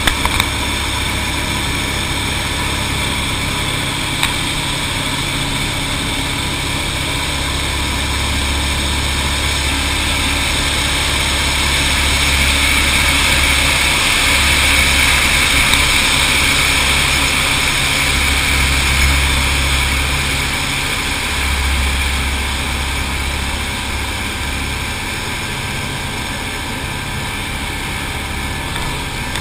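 Light aircraft's piston engine droning steadily inside the cockpit, with a strong hiss of airflow over the canopy, during a descending spiral. The hiss swells through the middle and eases off near the end.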